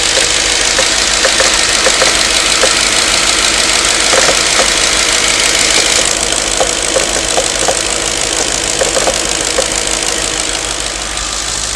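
Warm engine running with an irregular knocking, short sharp ticks coming a few times a second over the steady engine noise; the knock appears only after the engine has warmed up.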